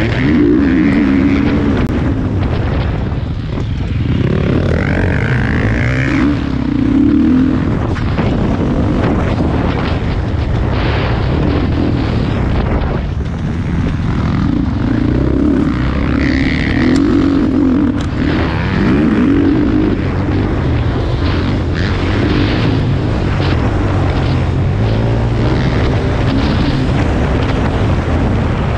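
Motocross bike engine at race pace, its pitch rising and falling again and again as it revs up and drops back through the gears, with sharp knocks and rattles over the noise.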